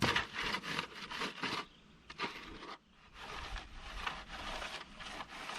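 Rustling and scraping of grass and weeds being pulled out of garden soil, in a quick run of short scratches that drops away for a moment near the middle, then softer rustling.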